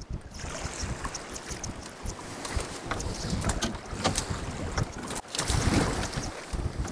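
Wind buffeting the microphone on a small open boat at sea, with sea water slapping around the hull and scattered clicks and knocks from handling gear in the boat. A stronger gust rumbles about two thirds of the way through.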